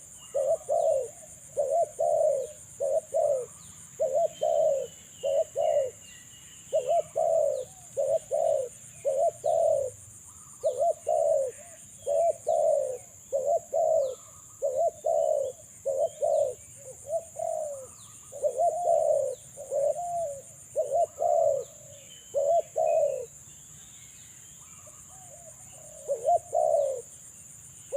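Spotted dove (terkukur) cooing in repeated phrases of several quick notes, with a short pause near the end. This is the call of a decoy dove used to lure wild doves. Faint chirps of small birds sound above it.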